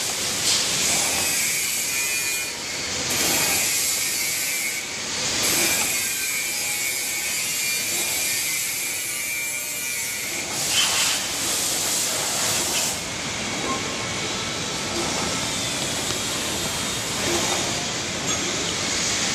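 Automatic facial-mask cartoning machine running: a steady mechanical clatter and hiss that swells briefly every few seconds as it cycles.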